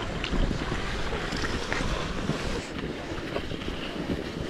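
Wind buffeting the microphone during a fast downhill run on cross-country skis, with the skis hissing over the snow; a steady noise with no pitched sound in it.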